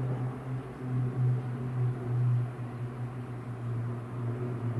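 Formation of single-engine propeller aircraft flying overhead: a steady propeller drone on one low pitch, its loudness swelling and easing slightly.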